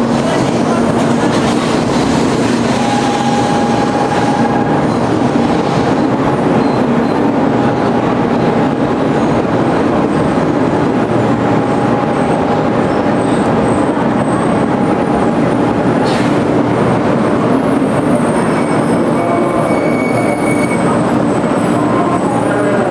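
300 series Shinkansen running at speed, heard from inside the car: a loud, steady rush of running noise with a faint steady whine through the middle and a brief click about two-thirds of the way in.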